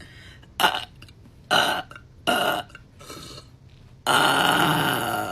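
A woman burping: three short burps, about a second apart, then a long drawn-out burp that starts about four seconds in.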